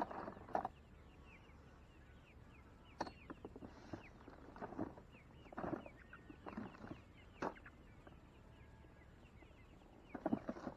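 Faint poultry calling in short separate bursts every second or two, with a few sharp knocks in between.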